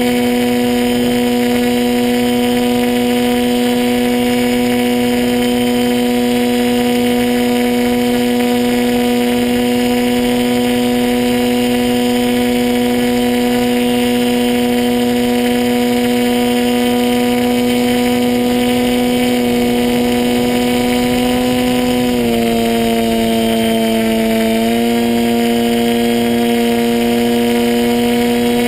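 RC model plane's motor and propeller heard from on board, running at a steady, high, humming pitch. The pitch drops for a couple of seconds near the end as the throttle is eased, then comes back up.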